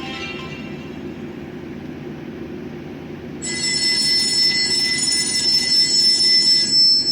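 An alert tone played from a Pantech Breeze IV phone's speaker: a shrill, screeching sound of several steady high tones over a hiss starts about halfway in and lasts about three seconds, then thins to a single high tone near the end. A low steady hum runs under it.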